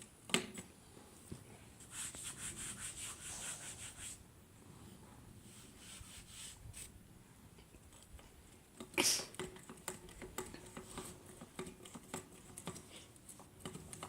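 Pine boards being handled and worked by hand: a run of quick, rhythmic scraping strokes about two seconds in, scattered light clicks, and one sharp knock of wood about nine seconds in.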